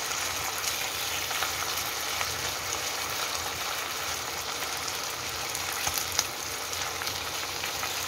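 Bacon strips sizzling steadily in coconut oil in a nonstick frying pan, with a couple of sharper clicks about six seconds in.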